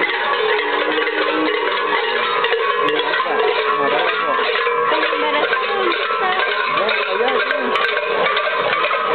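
Dancers' rattles and bells jingling steadily as they dance, mixed with traditional music and the voices of the crowd.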